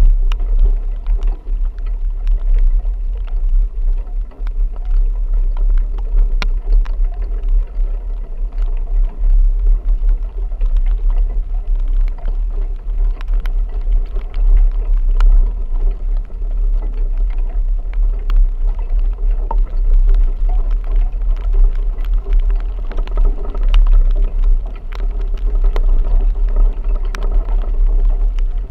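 A vehicle driving through a rain storm: a steady deep rumble of engine and road, with many scattered sharp ticks over it.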